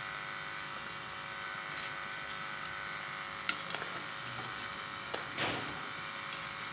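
Chicken feet boiling in water in a metal pot under a steady hum. A spoon stirs the pot, clinking sharply against the metal a little past the middle, then a few lighter clicks and a brief scrape.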